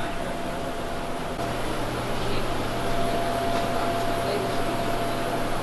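Steady whirring machine noise from air-handling equipment at the end of a jet bridge by a parked airliner's door, with a held mid-pitched whine; a lower steady hum joins about a second and a half in.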